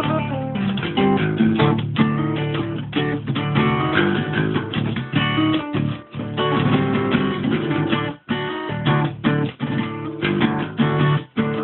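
Acoustic guitar playing, strummed chords mixed with picked notes in a steady rhythm, with short breaks about six, eight and eleven seconds in.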